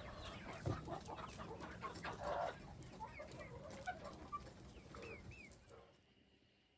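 Chickens clucking softly, with scattered short, chirpy calls, cutting off to near silence about six seconds in.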